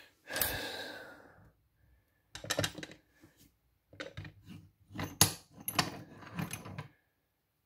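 A short metallic ring fading out near the start, then a run of small metal clicks and rattles as the bench vise is loosened and the brass lock cylinder is handled out of its jaws.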